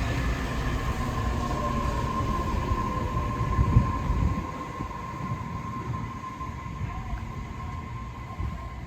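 Tobu 60000 series electric train coming to a stop at the platform. The low wheel rumble ends about four seconds in, and a steady high hum carries on while the train stands.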